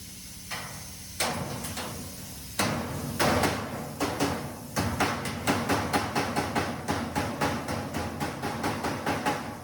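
Hammer blows on sheet-metal ductwork, closing the Pittsburgh lock seam along the throat of a square elbow. A few separate strikes come first, then a steady run of blows from about halfway through.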